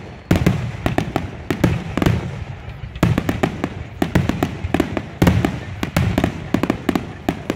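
Fireworks going off in a dense run: sharp crackling pops several times a second, with heavier bangs about once a second.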